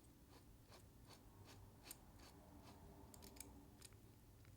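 Faint, regular ticks, about two or three a second, from a small hand driver turning a tiny screw into a folding knife's frame until it catches the lug nut inside.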